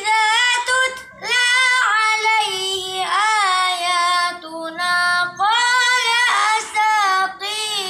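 A boy's voice chanting Quranic recitation in the melodic tajwid style: long held notes that bend and waver in pitch, in several phrases with short breaths between them.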